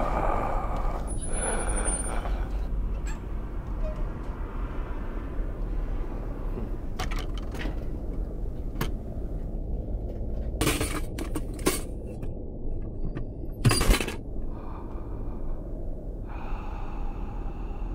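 A steady low rumble with scattered clicks and knocks, a cluster of them about eleven seconds in, and one louder knock or bang about fourteen seconds in.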